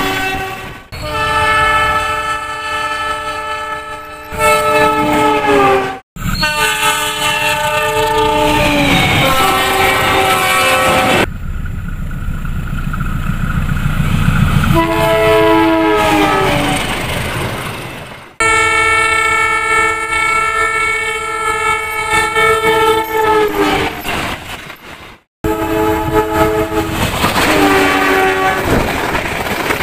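Train horns sounding in a series of separate multi-note blasts, several dropping in pitch as they end. Midway one stretch holds only the noisy rumble of a passing train. The blasts are joined by abrupt cuts.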